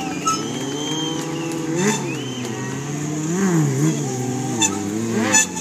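Sport motorcycle engines revving during wheelie stunts, their pitch rising and falling again and again with the throttle as the riders hold the front wheel up. There are a few brief sharp sounds along the way.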